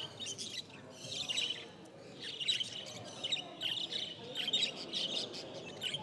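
Many caged budgerigars chattering and chirping in quick, overlapping bursts throughout, over a low background murmur.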